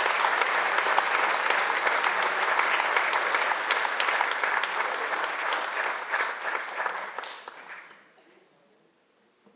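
Audience applauding, a dense round of clapping that dies away about eight seconds in.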